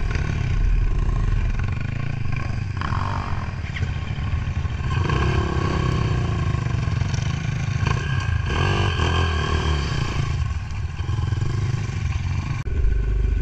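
Enduro motorcycle engine running as it is ridden, its revs rising and falling a few times.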